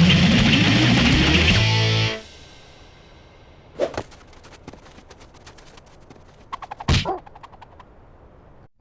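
Loud guitar-driven cartoon music cuts off abruptly about two seconds in. Then comes a quiet stretch broken by two short swishing hits, about four and seven seconds in.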